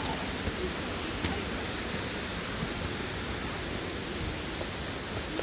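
Steady rush of flowing water from a rocky mountain stream, with a few faint clicks on top.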